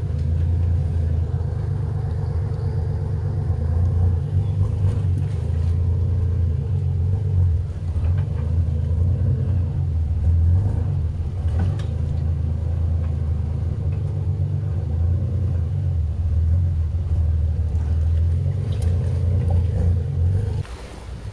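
1978 Toyota Land Cruiser FJ40's engine running with a steady low rumble as the truck crawls through a rocky river ford. The rumble drops away suddenly just before the end.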